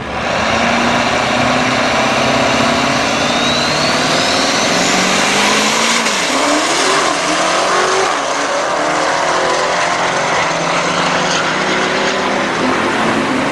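A Dodge Charger Hellcat and a diesel Ford Super Duty pickup launching together and accelerating hard in a drag race, the engines loud from the first moment. A high whine climbs in pitch a few seconds in, and the engine notes rise and drop back with gear changes midway through.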